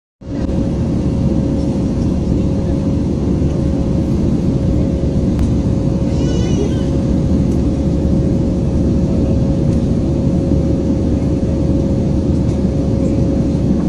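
Steady roar of a jet airliner in flight, heard from inside the cabin beside the engine, with a constant hum running through it. About six seconds in, a brief high warbling sound rises over the roar.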